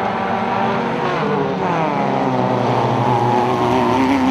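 Engines of off-road racing Citroën Saxo hatchbacks running hard on a dirt track, the engine note rising and falling about a second in, then holding fairly steady.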